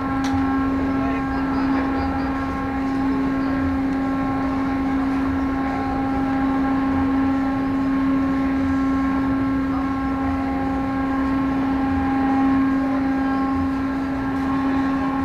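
Car-passenger ferry's engines and onboard machinery running steadily: a constant drone held on one pitch, with a rumble beneath it.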